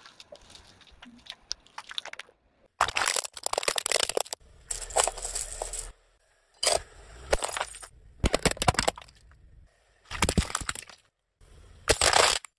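Car tyre crushing objects in a string of short, abruptly cut clips. First a plastic bottle packed with matchsticks crackles and crunches under it, then a pile of coins clinks and scrapes. The loud bursts of cracking and crunching are separated by brief silences.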